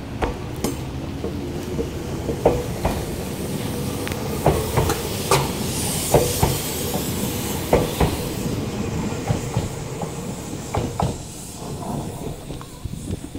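Nagano Electric Railway 1000 series electric train pulling out and running past at low speed, its wheels clicking over rail joints and points under steady running noise. It grows fainter near the end as it draws away.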